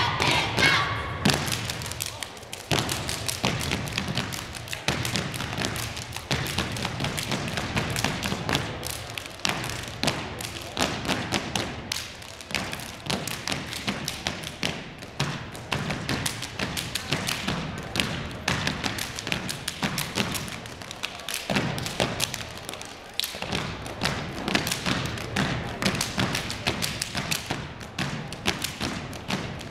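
A step team's body percussion: feet stomping on the hardwood court with hand claps and slaps, a long run of sharp thuds in rhythm.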